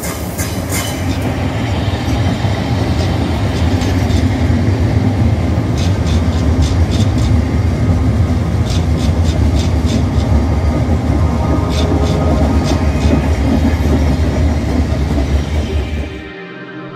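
Class 707 electric multiple unit passing through the platform: a steady heavy rumble with repeated sharp clacks of the wheels over rail joints. The sound cuts off abruptly about a second before the end.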